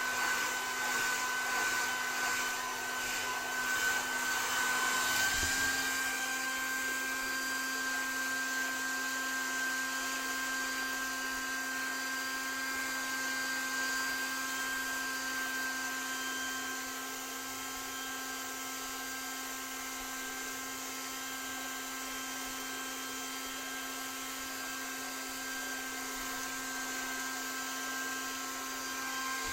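Hair dryer running steadily: fan hiss with a constant high whine. The tone shifts slightly about five seconds in, and the sound gets a little quieter past the halfway point.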